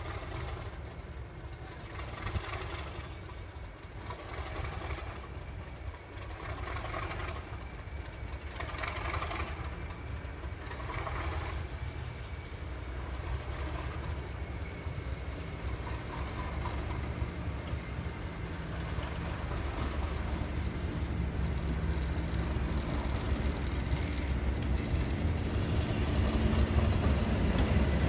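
English Electric Class 37 diesel locomotive approaching at low speed, its V12 diesel engine running steadily and growing louder as it draws near.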